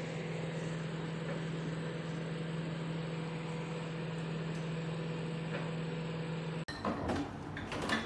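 Khind MW2001 microwave oven running: a steady hum with a low drone. It cuts off suddenly near the end, followed by a few clicks and knocks.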